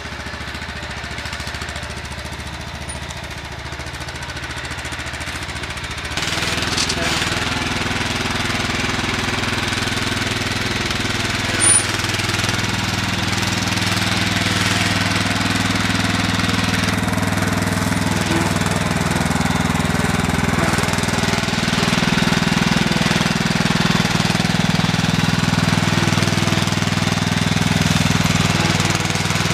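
Riding lawn mower's small engine running steadily as the mower drives across deep wood-chip mulch. It steps up in level about six seconds in and grows louder as the mower comes closer.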